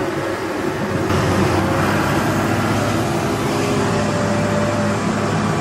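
A vehicle engine running steadily with a low, even hum under a wash of noise, a little louder from about a second in.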